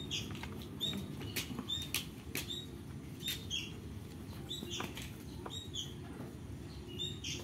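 Spotted dove flapping its wings and giving short, high squeaky peeps that fall in pitch, about twice a second, with quick clicks among them as it feeds.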